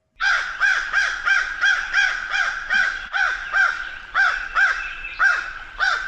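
American crow cawing, a long run of repeated caws at about two a second.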